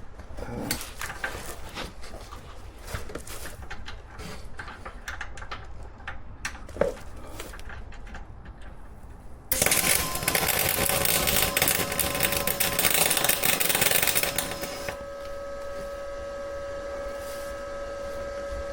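Light clicks and knocks of handling, then about nine and a half seconds in a MIG welding arc starts abruptly and crackles for about five seconds before stopping, leaving a steady hum with a few held tones.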